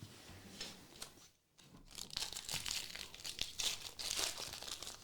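Trading-card pack wrapper being torn open and crinkled by hand, with a short lull about a second and a half in and then denser crackling.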